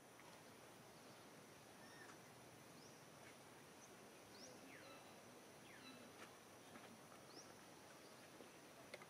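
Near silence: a faint steady hiss of background noise, with a few faint, short high chirps scattered through the middle.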